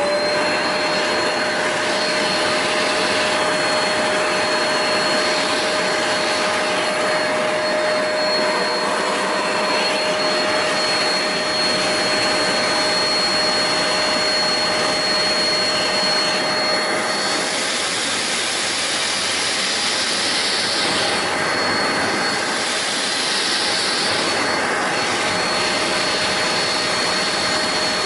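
Hoover Spotless portable carpet spot cleaner switched on, its motor whine rising quickly and then running steadily with a strong suction hiss. In the second half the whine falls away for a few seconds and the hiss swells and fades repeatedly as the nozzle is worked over the carpet stain.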